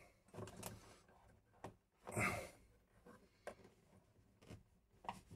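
Faint handling noises of a Schneider wall-socket mechanism being pushed and adjusted into a plastic flush-mount box: a few scattered light clicks and rubs of the metal frame and plastic, with one longer rustle about two seconds in.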